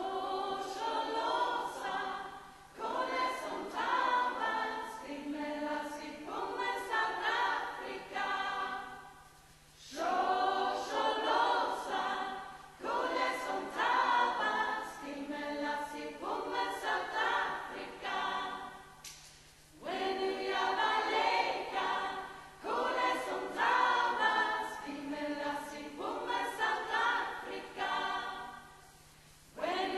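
Women's choir singing a cappella in long phrases, with short breaks between phrases about every ten seconds; the singing starts right at the beginning.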